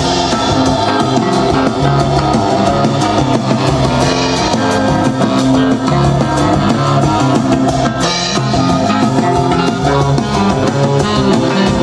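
Rock music playing, with a drum kit and cymbals over bass and guitar, loud and steady throughout.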